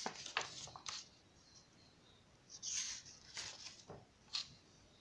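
Pages of a large glossy book being turned by hand: a few papery rustles at the start, then three more brief swishes in the second half as pages slide over.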